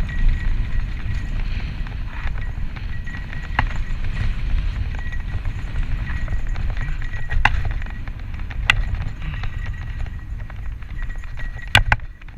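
Santa Cruz Tallboy LTC mountain bike descending a dirt singletrack at speed: a steady low rush of wind on the camera mic and tyres rolling over dirt. Several sharp clacks from the bike rattling over bumps, two in quick succession near the end.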